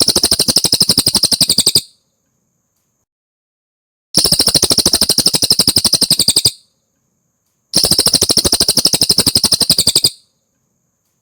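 Cililin (velvet-fronted nuthatch) calling in three fast trills of rapid, evenly repeated high notes, each about two seconds long, with silent gaps between them.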